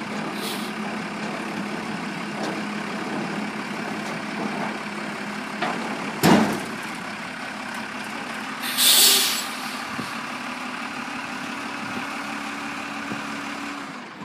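Heavy diesel tractor truck idling steadily, with a sharp knock about six seconds in and a short hiss of compressed air from the truck's air system a few seconds later. The idle cuts off near the end.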